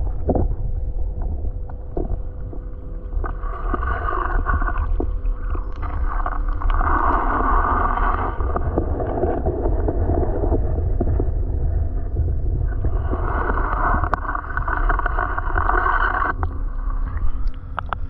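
Muffled rushing and gurgling of water around a submerged camera, over a heavy low rumble, swelling louder for a few seconds at a time.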